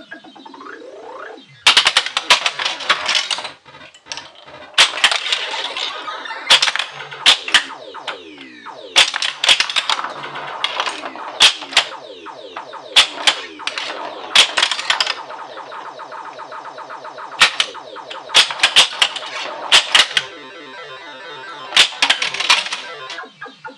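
1980 Williams Black Knight pinball machine in play. Its electronic sound effects beep and glide among sharp clacks from the flippers, bumpers and ball. The sounds come in busy bursts a second or two long, again and again.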